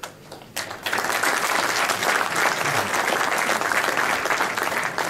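Audience applauding: dense clapping that starts just under a second in and keeps up steadily.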